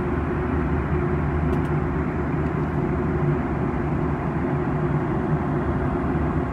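Steady cabin drone of a jet airliner in cruise: engine and airflow noise with a low, even hum.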